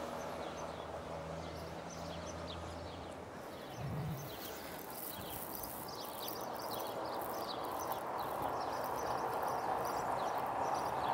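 Steady outdoor background noise that grows slightly louder toward the end, with many short high chirps throughout. A low hum runs through the first few seconds, and there is a brief low thud about four seconds in.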